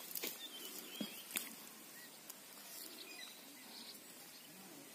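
Faint scraping and crumbling of dry soil clods under a hand, with a few small sharp clicks in the first second and a half. Faint bird chirps sound in the background.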